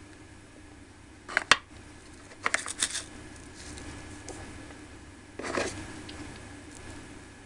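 Small wooden chopsticks clicking and tapping against a little plastic container while coating a miniature cutlet in breadcrumbs: a couple of sharp clicks about a second and a half in, a quick run of taps around three seconds, and a short scraping rustle about five and a half seconds in.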